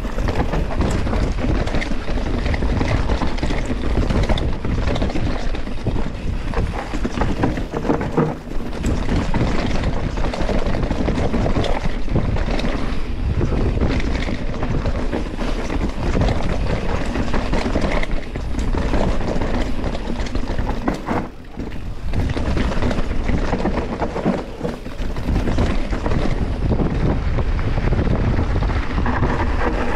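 Mountain bike descending a rough, rooty dirt trail, heard from a rider-worn action camera: steady wind rush on the microphone, the tyres on dirt and roots, and the bike clattering and rattling over the bumps, with a brief lull about two-thirds of the way through.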